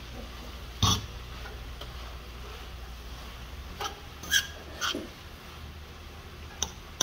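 Sliced peppers, okra and carrots sizzling in a nonstick sauté pan, with about five short knocks of a fork against the pan as they are stirred.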